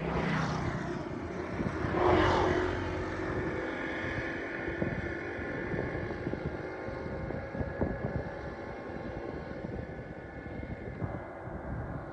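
An engine running steadily, growing louder briefly about two seconds in.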